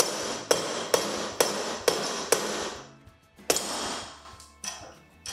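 A hammer drives a pry tool under the cap of a camper bed-leg channel clamped in a bench vise. Six sharp metal blows come at about two a second, each with a short ring. After a pause about two and a half seconds in come one heavy blow and a few lighter taps.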